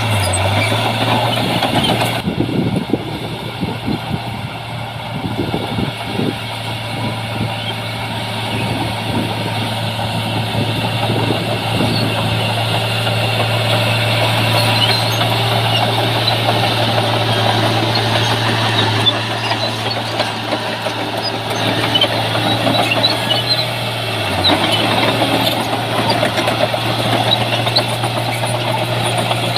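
Heavy earthmoving machine's diesel engine running steadily, with a constant low drone.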